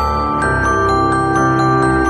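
Background music: a steady run of bright, quick notes, about four a second, over held low tones.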